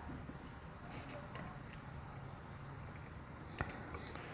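Faint small clicks of a wire jumper and screwdriver being handled on the screw terminals of a push-button station, with a couple of sharper clicks near the end, over low room hum.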